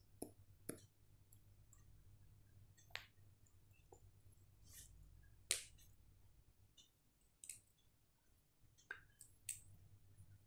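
Near silence: faint room tone with a low steady hum and a dozen or so scattered, irregular small clicks and taps. The sharpest come about three and five and a half seconds in.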